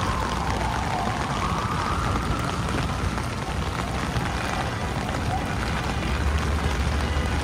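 Heavy rain on an umbrella and a wet city street, with traffic rumbling underneath and a vehicle rumble swelling near the end. A wavering tone slowly rises and falls above the rain, fading out after about five seconds.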